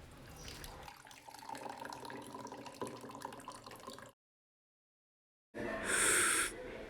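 Kitchen tap water running into a sink, faintly at first, then cutting to dead silence for over a second before a short, louder gush of water near the end.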